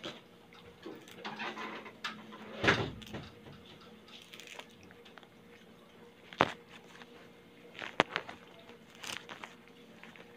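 Moringa (malunggay) leaves being stripped off their stems by hand: soft rustling of leaves with a few sharp snaps and clicks, the loudest a little under three seconds in.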